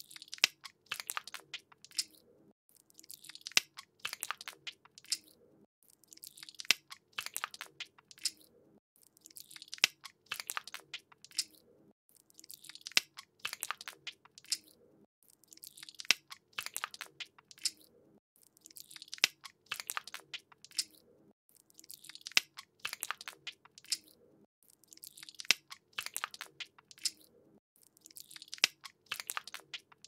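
Hands rubbing together in soap lather, a scrubbing noise in bursts that repeat about every three seconds, with short quieter gaps between.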